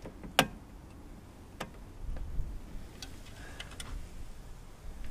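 Sharp clicks and taps of the plastic fuel tank and engine cover of a small two-stroke mower engine being worked loose by hand: one loud click about half a second in, another about a second later, and a quick run of lighter clicks after three seconds, over dull handling knocks.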